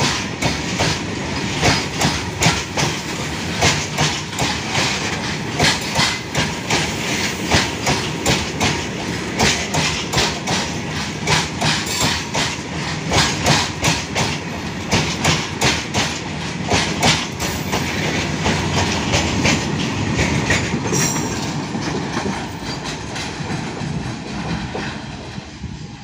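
Steel wheels of a long goods train of open freight wagons clattering over rail joints as the wagons pass close by, a continuous run of clicks and rumble. The clatter fades over the last few seconds as the tail of the train passes and moves away.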